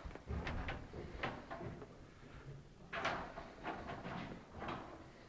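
Footsteps on bare wooden floorboards, with irregular knocks and thuds and a louder scuffing patch about three seconds in.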